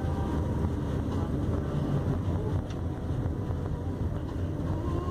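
Steady low rumble of a taxi's engine and road noise, heard from inside the cab.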